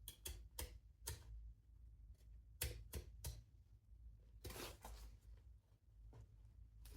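Faint, scattered light clicks and taps with a short scraping rustle about halfway through: small hand-work noises at a workbench, over a low steady hum.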